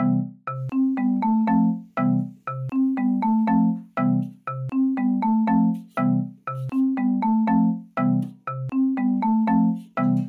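Background music: a marimba-style tune repeating a short phrase of quick struck notes about every two seconds.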